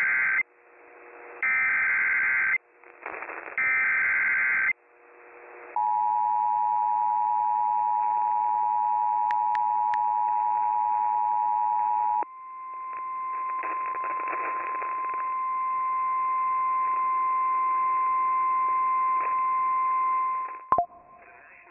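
Emergency Alert System broadcast tones. First come three roughly one-second SAME header data bursts: rapid warbling between two high tones, the digital code that opens an EAS alert. Then the two-tone EAS attention signal holds steady for about six seconds, followed by a single steady 1050 Hz weather-radio alert tone that swells in and holds for about eight seconds before cutting off with a click near the end, heralding a tornado warning.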